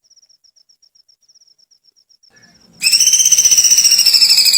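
A bird's rapid, high trilling call, the giggling 'kunti' laugh. The trill drops to a faint pulsing, then comes back loud about three seconds in, rising a little in pitch and then easing down.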